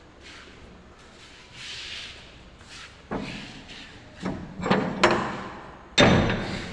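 A series of sudden knocks and thuds, about four of them in the second half, the loudest near the end, after a soft hiss.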